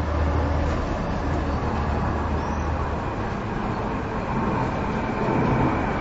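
City courtyard ambience: a motor vehicle's low engine rumble over a steady traffic hiss, the rumble fading about three seconds in, with a couple of faint high bird chirps.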